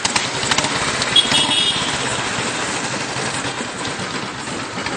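Royal Enfield Standard's single-cylinder engine running steadily close up, a dense, even run of exhaust beats, with a brief high tone about a second in.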